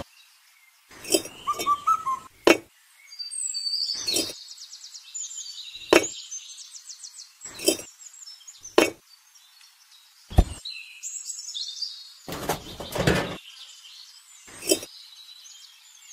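Miniature bricks clinking and knocking as they are set one at a time onto a small metal plate: about ten sharp clicks a second or two apart. Birds chirp between them.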